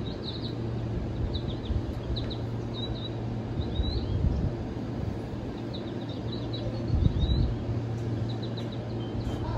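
Small birds chirping in quick clusters of short, high chirps, over the steady low hum of a stationary electric train.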